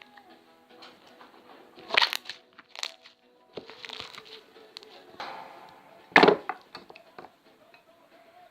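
Slime being squeezed and handled, making short crackling, crunching sounds in several separate bursts, the loudest about six seconds in, over faint background music.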